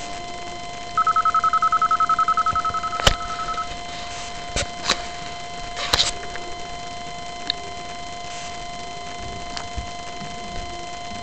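Siemens mobile phone sounding a fast-pulsed electronic beep at one high pitch for about two and a half seconds, fading at the end, as the handset starts up after the PIN screen. A few sharp clicks follow over the next few seconds, with a faint steady electronic hum underneath.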